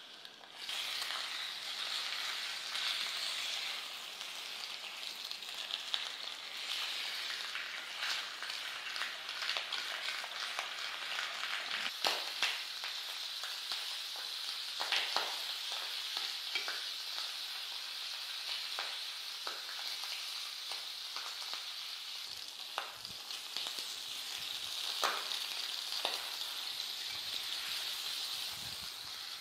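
Marinated pork frying in hot oil in a non-stick frying pan: a steady sizzle, starting about half a second in, with scattered sharp pops.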